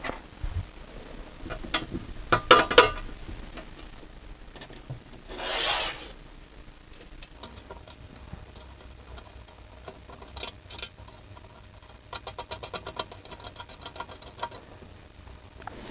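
Hand assembly of a cast-iron gas burner: a bolt and nut clinking against the metal, a short scraping rub about five seconds in, then a quick even run of small clicks near the end as a screwdriver turns the bolt.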